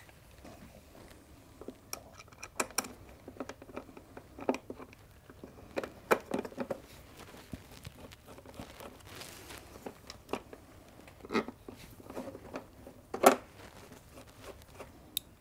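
Small hand screwdriver fitting the screws of an air-filter cover plate on a motorcycle airbox: scattered small clicks, taps and short scrapes of the tool and plate being handled.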